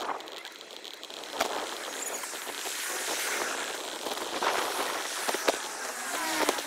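Outdoor street and riding noise from a bicycle-mounted camera, played six times too fast: a steady hissing rush with sharp clicks scattered through it and a few quick chirping pitch glides near the end.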